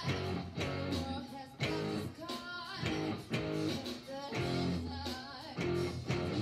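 Squier electric guitar being played, a run of picked notes and chords changing about every half second, some notes with a wavering pitch.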